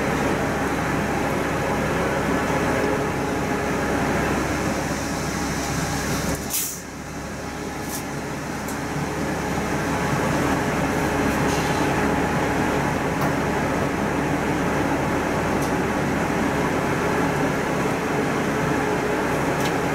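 A bus running, a steady mix of engine and road noise. A sharp knock comes about six and a half seconds in, after which the noise drops and slowly builds back up.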